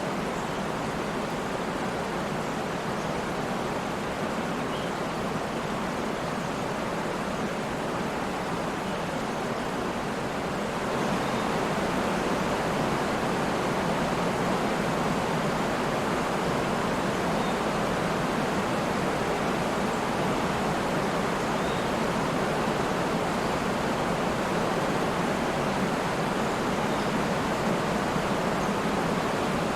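Waterfall: a steady rush of falling water, stepping up a little in loudness about eleven seconds in.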